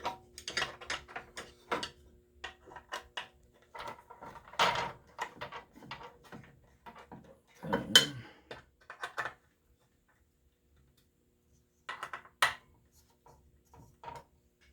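Hand screwdriver tightening the Torx 20 screws of a miter saw table insert: irregular small metallic clicks, taps and scraping as the driver bit seats and turns in the screw heads, with one louder knock about eight seconds in. It goes quiet for a couple of seconds, then a few more clicks follow.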